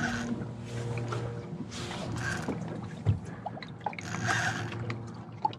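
Background music with steady held tones, under light water sounds around a small boat, with short bursts of splashing about two seconds in and again near the end.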